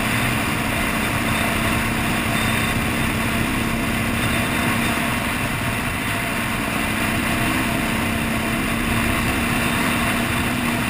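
2014 KTM 300 XC's two-stroke engine running under way at a steady pace, with an even, unchanging engine note. The owner calls the engine's performance undesirable.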